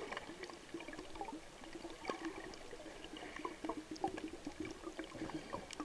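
Muffled underwater sound heard through a camera's waterproof housing: many scattered sharp clicks and crackles over a low steady hum.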